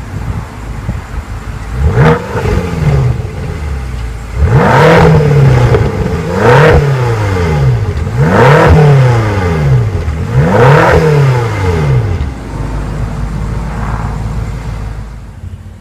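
2015 BMW M6 Gran Coupe's 4.4-litre twin-turbo V8 being revved: a short blip about two seconds in, then four revs in a row, each rising and dropping back. It settles to a steady idle near the end.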